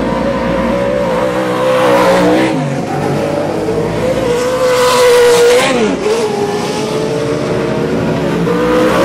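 Short-course off-road race trucks' engines running hard on the dirt track, the engine note rising and falling with the throttle. It surges louder about two seconds in and again around five seconds, then dips sharply in pitch as a driver lifts off and picks back up.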